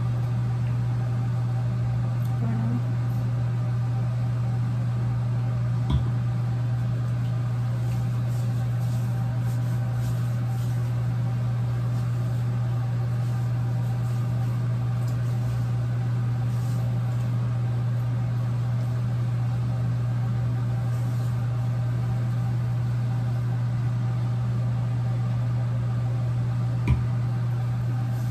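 A steady low mechanical hum, like a running motor or fan, with two light knocks, one about six seconds in and one near the end.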